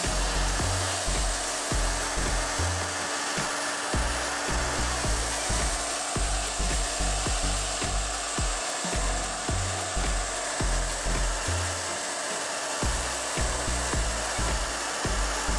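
Hot air gun blowing steadily, softening the adhesive tape under a smartphone's charging board, over background music with a stepping bass line.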